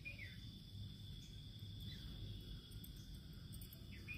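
Faint background: a steady, high-pitched insect drone, with three short, faint falling chirps.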